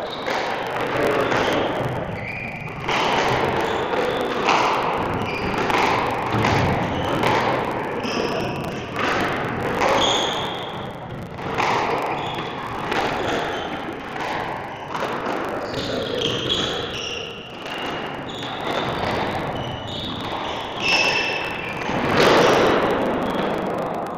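Squash rally: the ball being struck by rackets and hitting the court walls in a run of sharp, echoing thuds at an irregular pace.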